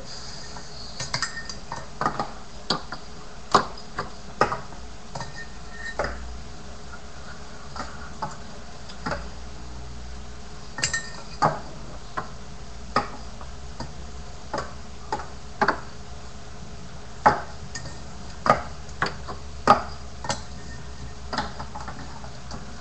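Finger BMX toy bike clicking and clattering on a wooden desk: irregular sharp taps, about one or two a second, as it is hopped, set down and landed by the fingers.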